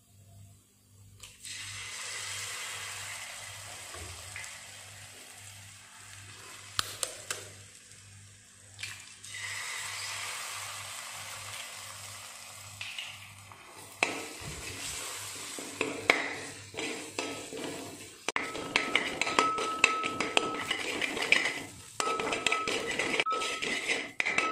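Eggs sizzling in hot oil in an aluminium pot, then a steel spoon scraping and clattering against the pot as the eggs are scrambled into the fried mixture, the scraping loudest in the second half.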